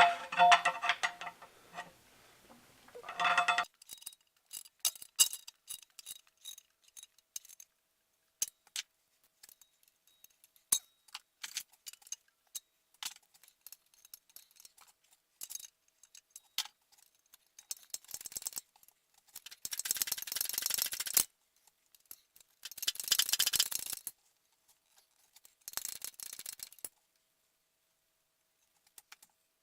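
Hand tools working on a flywheel and its torque converter bolts: scattered metal clicks and clinks of a pry bar and socket. Later come several bursts of rapid ratchet clicking lasting a second or two, as the engine is turned through to reach the 15 mm torque converter bolts.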